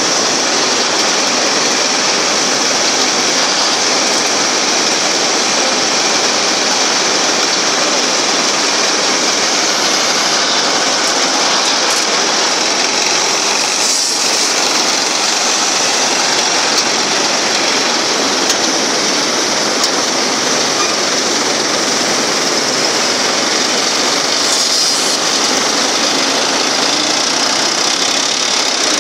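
Diesel engine of a 2WD tractor running steadily while it works a front-end grabber loader, an even mechanical noise that holds at one level throughout.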